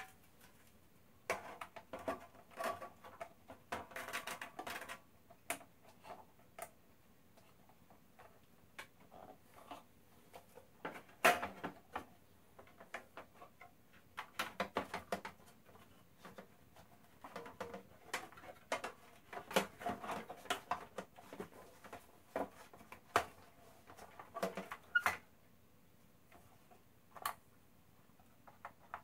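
Irregular clicks, taps and scraping as the metal shield plate and plastic parts of an opened Xbox One console are handled and cables reconnected, with a sharper knock about eleven seconds in.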